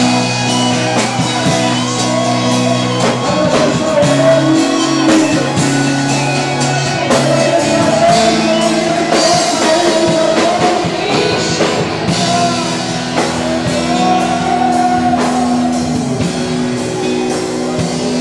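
Rock-style music with a singer over guitar and drum kit, a steady beat under sustained notes.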